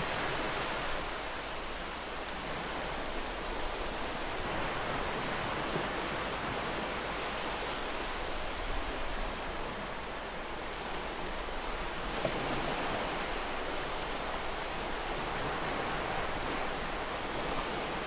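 Ocean surf: waves breaking and washing onto the shore, a steady hiss that swells and eases slightly every few seconds.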